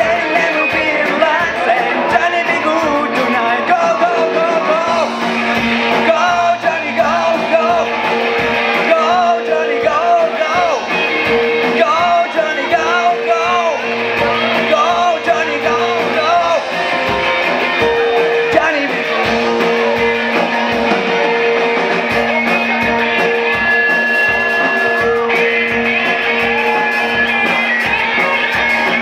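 A live rock band playing: drum kit, electric guitar and keyboard, with a lead vocal singing through most of the first half.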